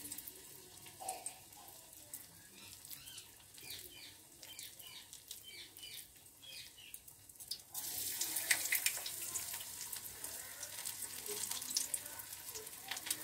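Soybean pakoda frying in hot mustard oil in a steel kadai: a steady sizzle with fine crackles, which grows louder about eight seconds in as another ball goes into the oil.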